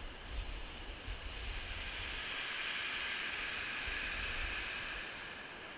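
Surf breaking and washing on a shingle beach, swelling to its loudest in the middle and easing off near the end, with wind buffeting the microphone.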